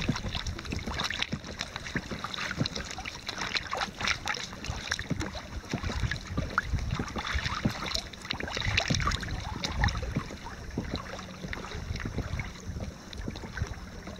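Water lapping and splashing against the inflatable hull of a Hobie Mirage i12S pedal kayak as it moves through the water, in short irregular splashes.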